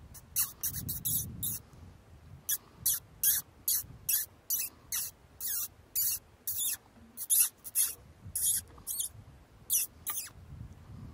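Predator call playing rodent distress squeaks: a long run of short, high-pitched squeaks in irregular bunches, the kind of sound used to lure a coyote in.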